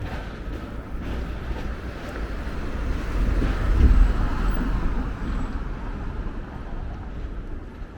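City street traffic: a motor vehicle passes close by, its low rumble swelling to a peak about halfway through and then fading, over a steady urban background.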